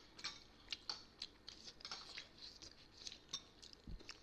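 Close-up eating sounds from people eating momo: a quick string of soft wet clicks and smacks of chewing, mixed with light clinks of spoons on china bowls, and a soft low thump near the end.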